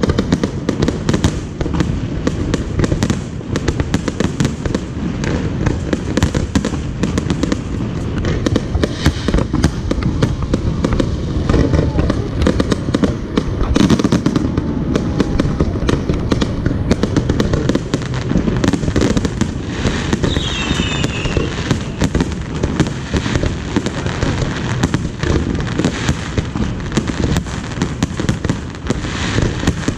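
A New Year fireworks display: a dense, unbroken run of shell bursts and crackling, many bangs a second, with people's voices underneath.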